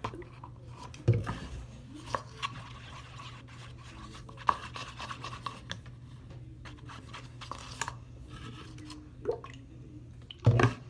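Small clicks, taps and rubbing from handling a stick, bottle and plastic container while adding activator to and stirring homemade glue slime, with two louder knocks about a second in and near the end. A steady low hum runs underneath.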